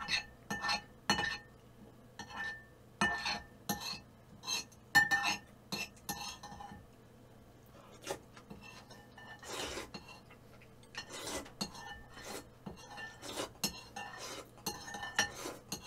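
Spoon clinking and scraping against a bowl while mixing rice in it, in an irregular string of strikes, several with a short ring. The scraping is at rice sticking to the bowl's sides.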